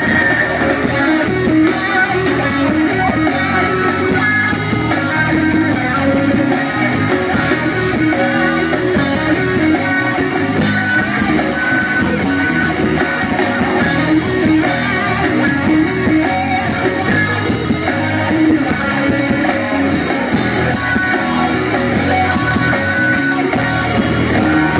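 Live rock band playing an instrumental break between sung verses, with guitar carrying the melody over the band.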